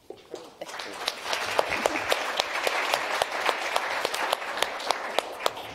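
Audience applauding: the clapping starts softly, swells within the first second and fades out near the end.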